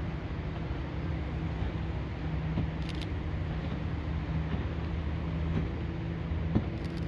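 A steady low engine hum over an even wash of outdoor noise, with one sharp tap about six and a half seconds in.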